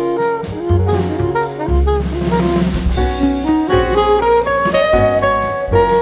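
Instrumental background music: sustained melodic notes over a steady beat.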